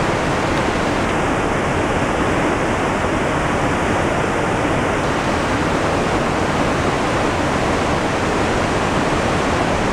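River water rushing, a loud and steady wash of noise with no breaks.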